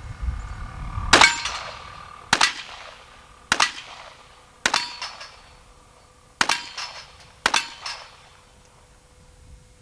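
Six shots from a .38 revolver, about a second apart, with a slightly longer gap before the fifth. Each shot is followed by a short metallic ringing.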